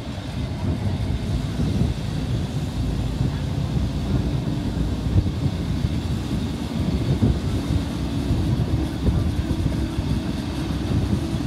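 ALn 668 diesel railcar running at low speed, its engine and wheels on the rails making a steady low rumble, heard from an open side window.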